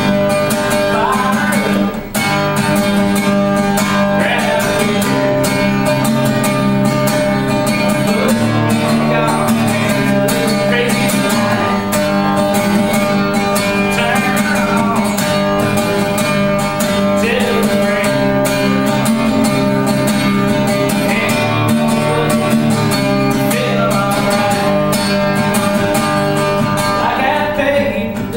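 Live country song: an acoustic guitar strummed steadily, with a man singing at times.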